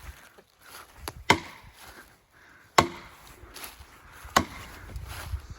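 Hand tool striking a partly cut tree trunk to drive it over in hinge cutting: three sharp wooden blows one and a half seconds apart, with a lighter knock just before the first.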